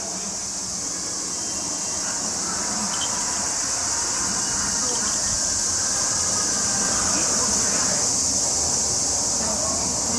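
Cicadas singing: a dense, high-pitched, steady buzz that slowly grows louder.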